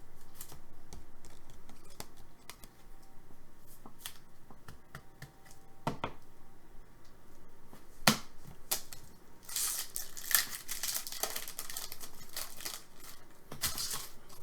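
Trading card pack wrapper being torn open and crinkled, among scattered clicks and rustles of cards being handled; the tearing and crinkling is loudest about ten seconds in and again near the end.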